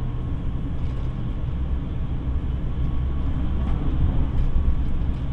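JR Shikoku 8000 series electric express train running at speed, heard from inside the passenger car as a steady low rumble with a few faint clicks.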